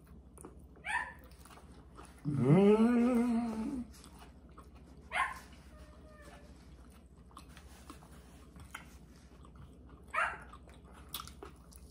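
A pet dog gives one long whining call about two seconds in, rising quickly and then holding for about a second and a half. A few short, sharp sounds come before and after it.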